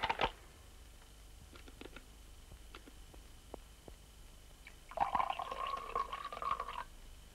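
A telephone handset slammed down onto its cradle with a sharp clack. About five seconds in, tea is poured from a kettle into a cup for nearly two seconds.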